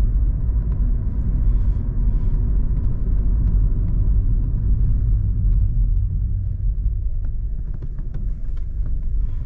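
Inside the cabin of a Volkswagen Polo 1.0 TSI on the move: a steady low rumble of its three-cylinder turbo petrol engine and the tyres on the road, a little quieter in the last few seconds.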